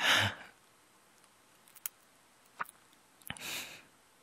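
Close-miked breathing of a male voice actor: a loud breath right at the start and a softer one about three and a half seconds in, with a few small mouth clicks in between.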